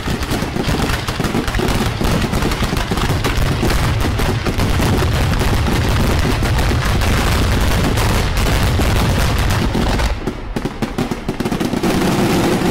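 Italian aerial firework shells bursting in rapid succession: a dense, continuous barrage of overlapping bangs and crackle over a deep rumble. About ten seconds in it thins out to separate, distinct bangs.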